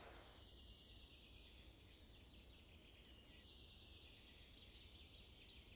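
Near silence: faint outdoor woodland ambience with a low hum and a series of faint, short, high chirps, typical of birds.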